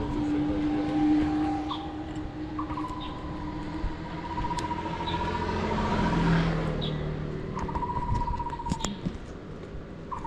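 A car passes by about six seconds in, its noise swelling and fading. Throughout, a bird calls in warbling phrases of a second or more, with short high chirps.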